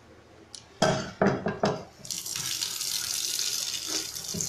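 A few knocks of a metal pan and spoon in a kitchen sink, then a tap running steadily into the pan from about two seconds in.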